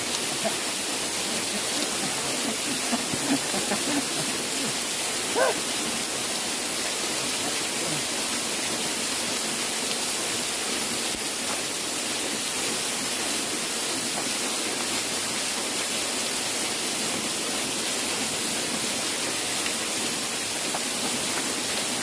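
Small waterfall pouring onto rocks close by: a steady, even rush of falling water.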